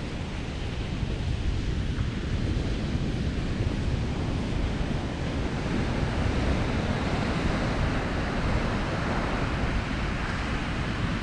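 Ocean surf washing on the shore under wind buffeting the microphone, a steady rush that swells a little in the second half.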